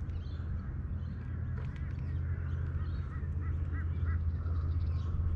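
A bird calling, a quick series of short calls about three seconds in, over a steady low rumble.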